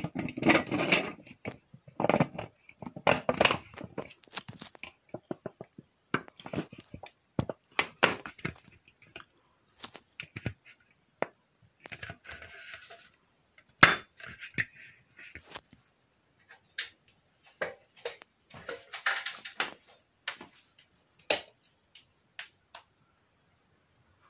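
White dome cover of a ceiling light being fitted back onto the fixture by hand: irregular clicks, knocks and short scrapes as the cover is pushed and turned into place.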